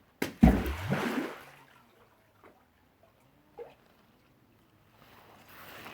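A stone plunging into water: a sharp smack about a quarter second in, then a loud, deep splash lasting about a second. A few small plops follow, and a soft wash of water rises near the end.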